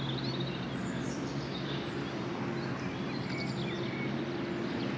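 Outdoor background: a steady low hum with birds chirping now and then over it.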